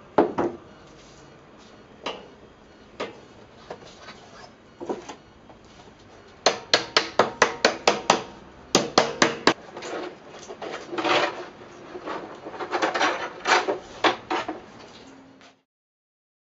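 Hammer blows on the hoop of a wooden barrel as it is driven down the staves. A few single strikes come first, then a fast run of blows at about six a second, and more clustered knocks after that.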